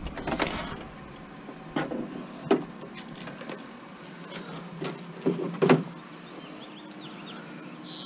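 Hand cutters snipping through a refrigerator's power cord, with the handling of the cord and fridge: a handful of sharp clicks and snaps, the loudest two close together about five and a half seconds in.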